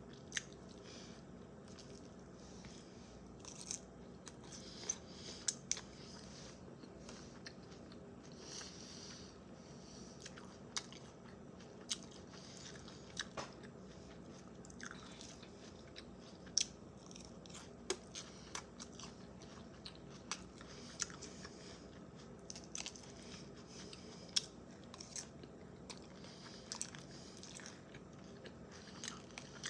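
Close-up chewing and crunching of a chicken salad with fresh vegetables, with irregular crisp crunches and mouth smacks every second or two.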